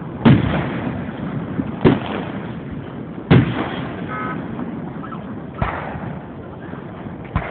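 Aerial firework shells bursting: five sharp bangs spaced about one and a half to two seconds apart, each trailing off in a rumbling echo.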